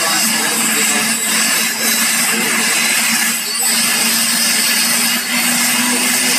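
Helicopter running on the ground: a loud, steady turbine whine with rotor noise and a constant low hum.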